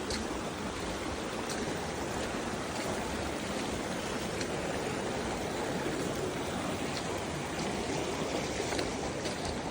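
Creek water rushing steadily over rocks, with a few faint clicks.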